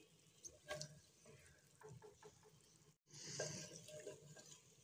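Near silence, with a few faint taps of a wooden spoon in a clay handi and a brief soft sizzle of chicken pieces cooking in their own released water about three seconds in.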